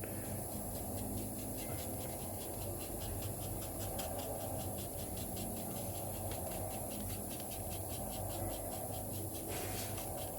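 Fine sandpaper rubbing over wet leather filler in quick, even scratchy strokes, several a second. The strokes stop about nine and a half seconds in.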